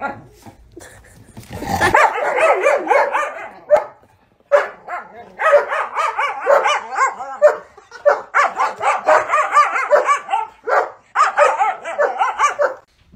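A dog vocalizing in protest at a man: long runs of wavering, whining yips and grumbles in four stretches with short breaks, a protective, jealous display over its owner.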